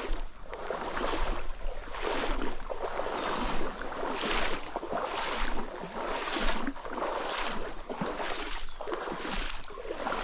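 An angler wading through a stream, water swishing and sloshing against his legs with each stride, about once a second.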